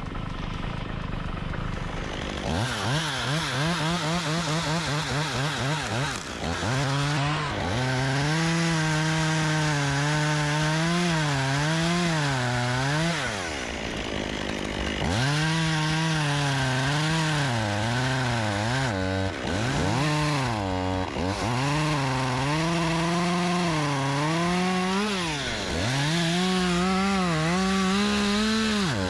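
Chainsaw running and cutting wood, its engine pitch sagging under load and rising again several times as it bites into the cut.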